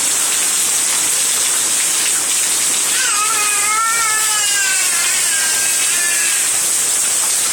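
Heavy rain pouring down in a steady, loud hiss. A high, wavering call rises over it for about three seconds midway.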